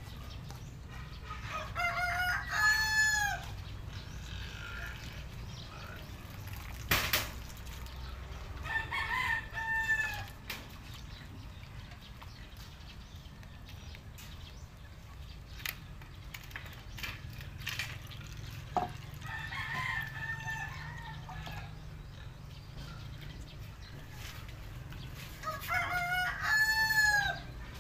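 A rooster crowing four times, several seconds apart, each crow about a second and a half long. A single sharp knock comes about a quarter of the way in.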